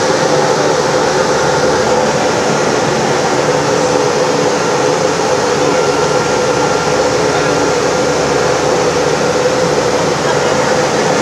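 A small passenger plane's engines running, heard inside the cabin as a loud, steady drone with a steady hum through it.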